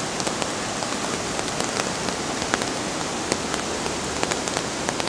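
Steady rain falling, an even hiss dotted with the sharp ticks of individual drops landing close by.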